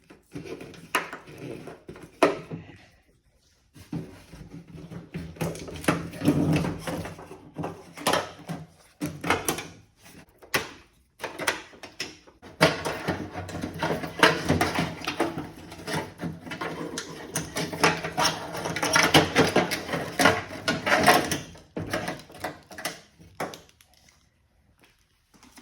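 Hands working a car door's wiring harness and its plastic clips loose from the door shell: clicking, scraping and rustling in bursts with short pauses.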